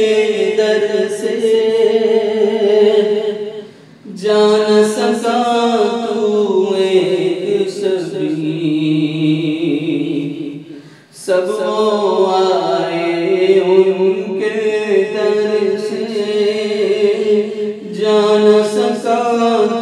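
A man's voice singing a naat, an Urdu devotional poem, unaccompanied, in long held and gliding notes. The voice pauses briefly about four seconds in and again about eleven seconds in.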